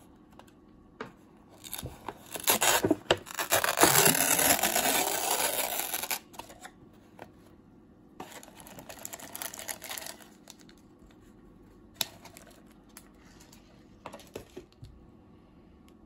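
Paper lid of an instant ramen cup being peeled back: a loud tearing rasp lasting about four seconds. It is followed by softer crinkling and a few small taps as the plastic seasoning sachets inside are handled and pulled out.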